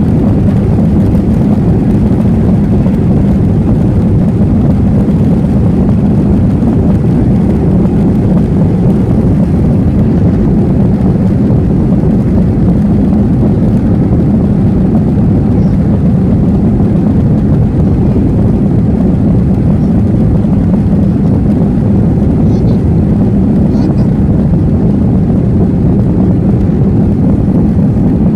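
Airbus A321 jet engines at takeoff thrust heard from inside the cabin over the wing, with the rumble of the wheels on the runway during the takeoff roll: a loud, steady, deep roar.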